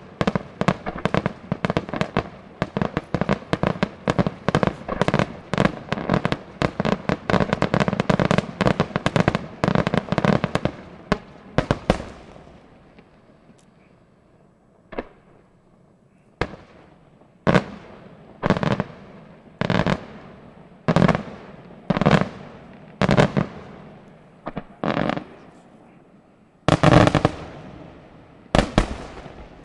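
Aerial fireworks shells bursting: a rapid barrage of bangs for about twelve seconds, then a short lull. After it come single loud bangs about once a second, the heaviest two near the end.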